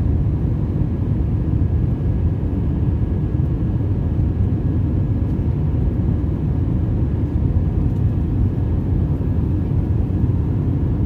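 Jet airliner in flight, heard from inside the cabin: a steady deep rumble of engines and airflow with a faint high whine held at one pitch.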